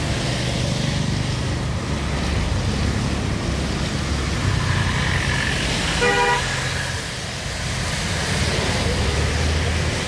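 Road traffic on a wet road: motorcycles, cars and a bus passing with a steady engine rumble and tyre hiss. One short horn toot sounds about six seconds in.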